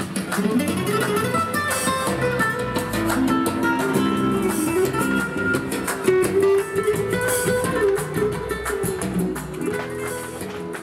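Flamenco music on guitar, with rapid strummed chords over melodic notes.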